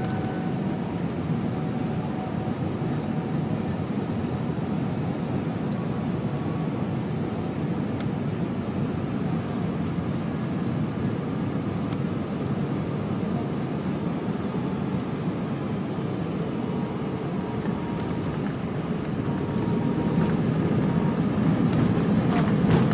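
Cabin noise inside an Airbus A319 airliner on final approach: a steady rumble of engines and airflow. About twenty seconds in it grows louder as the aircraft reaches the runway and the wing spoilers come up at touchdown.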